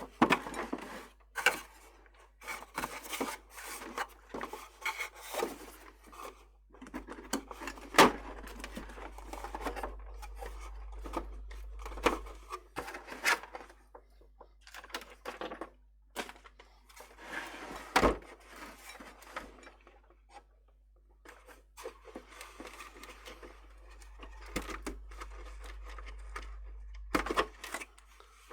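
Hand tools and hands working on a plastic electronic keyboard's case while it is taken apart: scratchy rasping as screws are turned out, with scattered clicks and knocks of screws and plastic parts, the sharpest knocks about 8 and 18 seconds in.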